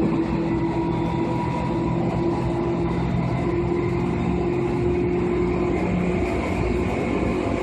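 Seibu 2000 series electric train running at a steady speed: even rumble of wheels and running gear with a steady motor hum.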